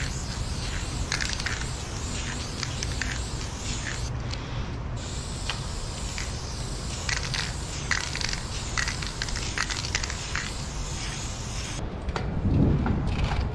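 Aerosol spray paint can (Dang Prime 400 ml black) hissing as black fill-in is sprayed onto a concrete wall, in long bursts with a short break about four seconds in. The hiss stops near the end.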